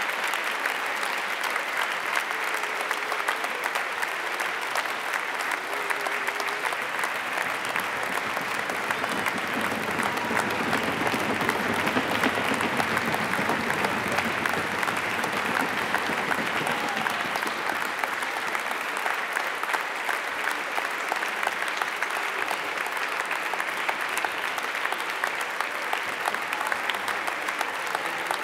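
Audience applauding: dense, steady clapping that goes on without a break.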